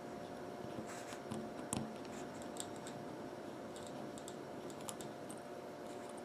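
Faint small clicks and scratches of fingers and fingernails handling a SIM card as it is set into a smartwatch's hinged metal SIM card holder. The clicks are scattered, with the clearest one a little under two seconds in.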